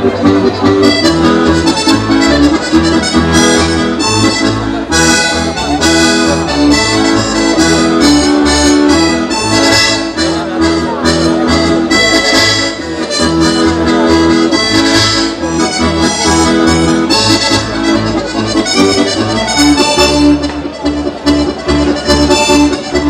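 Accordion playing a lively Sardinian folk dance tune, with repeated melody notes over a steady pulsing bass.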